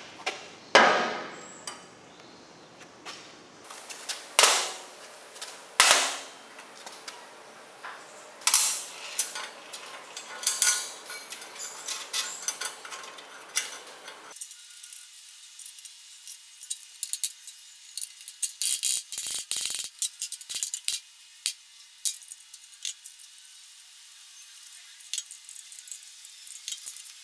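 Metal clanks from workshop work on metal parts. About five sharp strikes ring briefly, one every one to two seconds. About halfway through the sound changes to a run of lighter, quicker clicks and taps.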